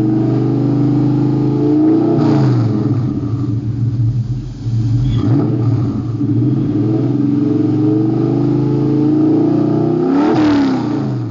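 Car engine running hard under acceleration, its pitch climbing and falling several times, with sharp pitch swings about two seconds in and again near the end.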